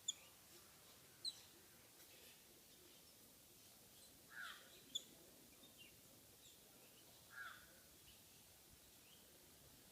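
Birds calling: a few sharp, very short high chirps and two louder harsh calls, one about four seconds in and one about seven and a half seconds in, over faint background hiss.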